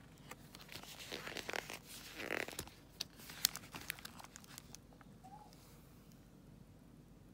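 Pages of a sticker book with glossy and foil sticker sheets being turned and handled: paper rustling and crinkling with a few sharp snaps, dying away about five seconds in.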